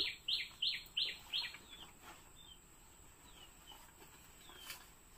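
A bird calling: a quick run of short downslurred chirps, about three a second, that fades out after a second and a half, followed by a few faint scattered chirps.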